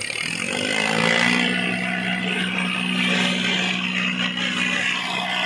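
Diesel tractor engines straining at full throttle under the pull of a tractor tug-of-war, a Farmtrac chained back to back against a Swaraj. The engine note climbs in the first second, then holds steady while the tyres spin in the dirt.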